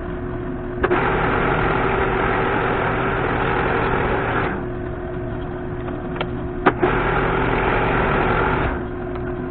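Metal lathe running with a steady hum while small spacers are turned, with two louder stretches of cutting noise, from about a second in to the middle and again near the end, and a few sharp clicks.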